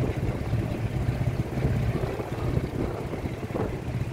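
A vehicle engine running steadily, a continuous low rumble with no change in pitch.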